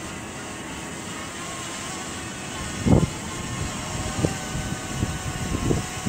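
DJI Mavic Mini's propellers whining steadily as it hovers close by. From about three seconds in, wind buffets the microphone in low irregular thumps, the strongest one first.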